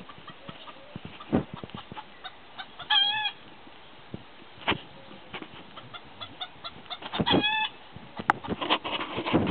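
Old English Game chickens calling: two short, wavering calls about four seconds apart, with scattered brief short sounds between them.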